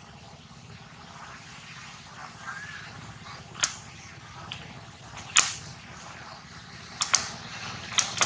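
A rubber balloon handled by a macaque's hands, giving a handful of short sharp snaps, the loudest about halfway through, over a steady low background hum.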